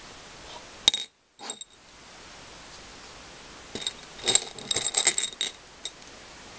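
Small beads clinking against a glass bead dish as they are picked through: two sharp clinks about a second in, then a quick run of light, ringing clinks from about four seconds in to about five and a half.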